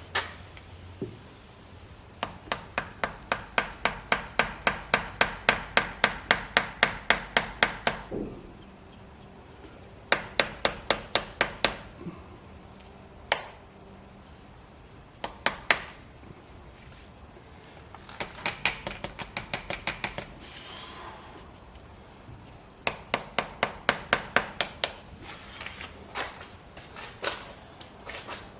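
Light, quick hammer taps, about four a second, in runs of several seconds separated by short pauses. The taps drive a pry tool into the seam of a Tesla Model 3 rear drive unit's oil filter housing to work it loose.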